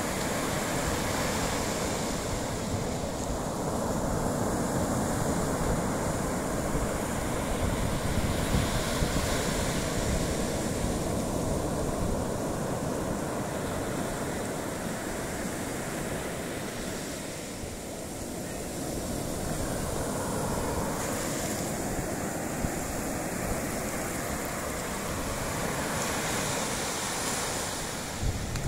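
Sea surf breaking and washing up a sand and shell beach, a continuous wash that swells and eases as the waves come in, with a low rumble of wind on the microphone.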